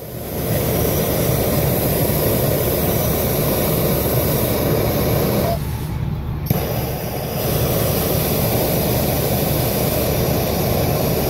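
Gas torch flame running with a steady roar as it heats a seized brake-line flare nut to free it from the hose. The roar breaks off for about a second near the middle, then resumes.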